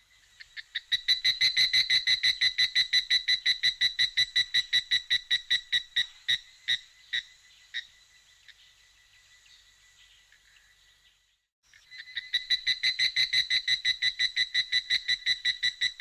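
A fast, evenly pulsed trilling animal call, about seven or eight pulses a second at a steady high pitch. It fades away about halfway through, then starts again at full strength near the end.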